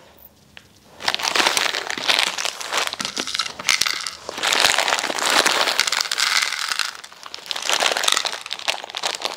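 Clear plastic packet crinkling as it is opened and handled. It starts about a second in and goes on in spells, with a short lull about seven seconds in.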